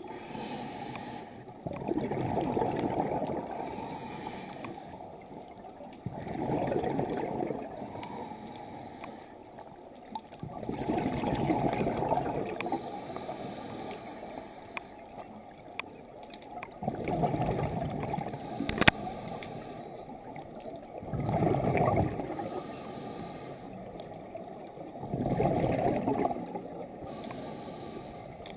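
Scuba diver breathing through a regulator underwater: a rush of exhaled bubbles comes six times, every four to six seconds, with quieter inhalations between. A single sharp click about nineteen seconds in.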